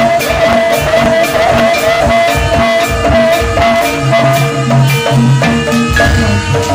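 Jaranan music played live: quick, steady percussion strokes under a held, wavering melodic line, with lower notes coming in about four seconds in.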